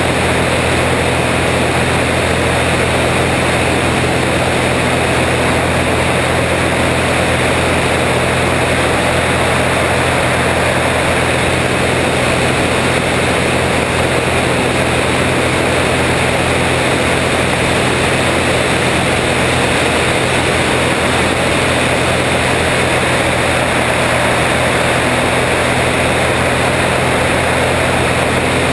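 Steady drone of a small single-engine propeller plane in flight, mixed with constant wind rush over a camera mounted outside on the wing; it does not change in pitch or level.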